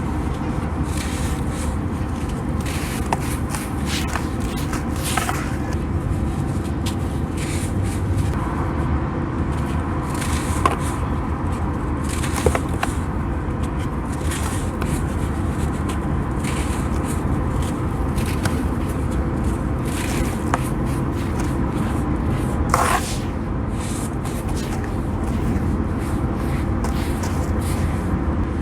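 Crispy dried sand being smashed and crumbled in a little water: a continuous gritty crackling with a few sharper cracks.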